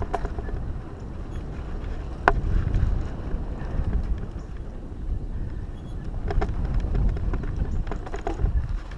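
Mountain bike ridden fast over a dirt singletrack: a steady low rumble of tyres on dirt and wind buffeting the microphone, with the bike clicking and rattling over bumps, one sharp click about two seconds in and clusters of rattles later on.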